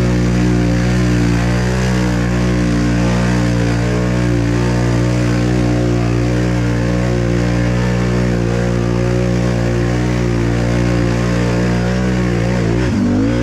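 Can-Am Renegade 1000 XMR's V-twin engine held at steady, hard revs as the ATV churns through deep mud, the revs dipping and climbing again near the end. The rider reckons it is not pulling the RPMs it should.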